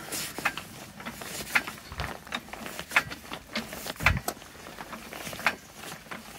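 Hydraulic trolley jack being pumped by its handle to lift a car: a string of short clicks and knocks, about one or two a second, with a couple of dull thumps.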